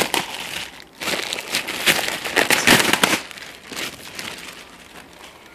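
Packaging crinkling and rustling as a part of a cold air intake kit is unwrapped by hand, dense for about three seconds and then dying away.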